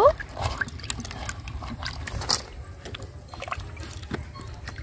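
Peeled green bananas being washed by hand in a clay bowl of water: swishing, small splashes and drips, with a few soft knocks as the wet bananas are moved into a steel bowl.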